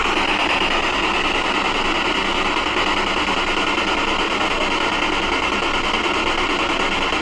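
Steady hissing noise with a faint low hum, unchanging throughout.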